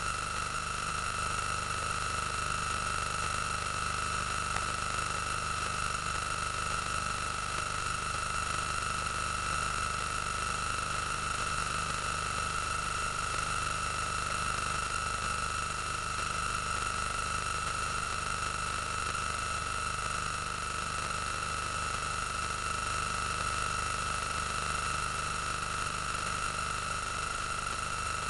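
A steady hiss with a constant high-pitched whine that never changes, without any sound from the scene itself.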